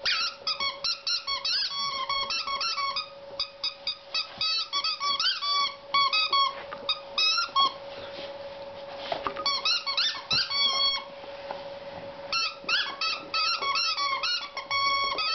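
Red rubber squeaky toy squeaking as a border collie chews it: fast runs of short, wavering squeaks, with a couple of brief breaks past the middle.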